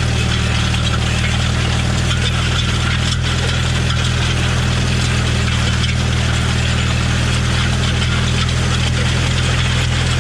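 Farmall M tractor's four-cylinder engine running steadily.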